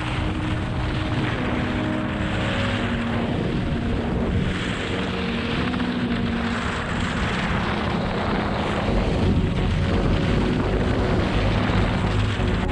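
Rushing wind on the microphone of a camera carried by a skier moving down a groomed piste, mixed with the hiss and scrape of ski edges carving the snow, swelling and easing with the turns.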